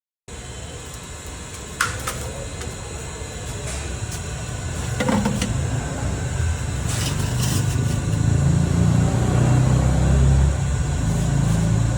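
Busy street noise with passing motor traffic: a steady hum, with an engine rumble that grows louder in the second half and a few short knocks scattered through.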